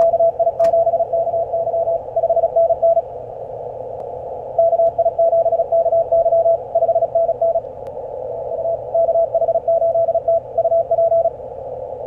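Morse code (CW) received on a CFT1 five-band CW transceiver tuned to the 15-metre band: a fast-keyed tone of dots and dashes over the receiver's steady band hiss. It comes in three runs with short pauses between.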